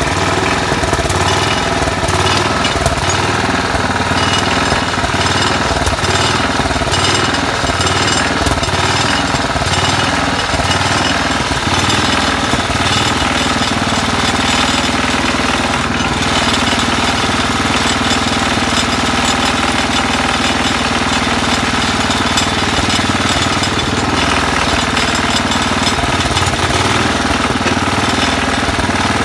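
1968 Sears Suburban 12 garden tractor's Tecumseh HH120 single-cylinder cast-iron engine running steadily at a fast idle.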